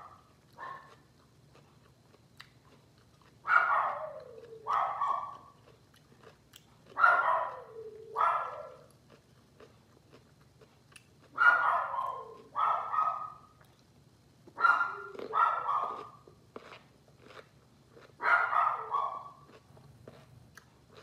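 A dog barking in short groups of two or three, about every three and a half seconds, each bark falling in pitch at its end. Between the barks there is faint chewing of crisp pickles.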